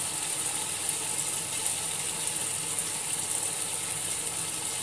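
Onion, tomato and curd masala simmering in a large aluminium pot over a gas flame: a steady hiss with faint, scattered pops.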